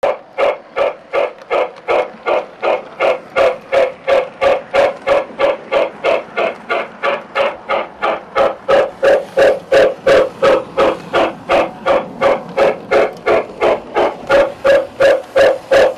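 Steam locomotive chuffing in an even rhythm, about three chuffs a second.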